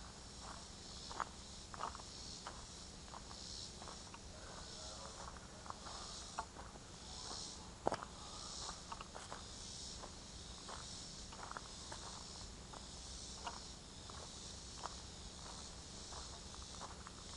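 Footsteps crunching irregularly on a dirt and leaf-litter forest trail, the sharpest step a little before eight seconds in. Behind them, a steady high-pitched chorus of insects pulses about once or twice a second.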